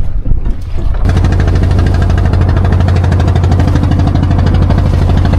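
A boat's engine running steadily, cutting in suddenly about a second in, with an even, rapid firing pulse and a strong low hum.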